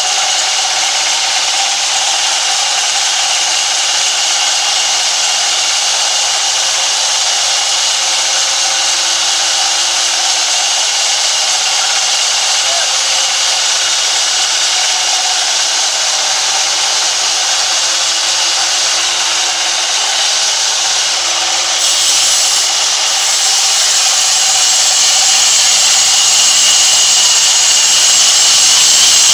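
Sawmill vertical band saw running and cutting lengthwise through a large timber beam: a steady, loud sawing noise with a constant high whine. The sound shifts slightly about three-quarters of the way through.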